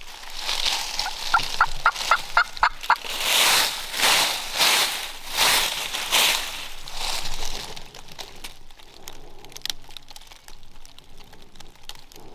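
Wild turkey gobbler gobbling: a quick run of about seven short yelping notes, then several loud gobbles close together, fading out about three-quarters of the way through.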